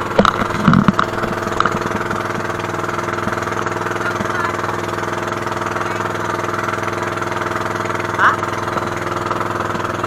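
Engine of a motorized outrigger boat (bangka) running steadily under way, a constant drone with several steady tones. A few knocks come in the first second, and a short sound comes about eight seconds in.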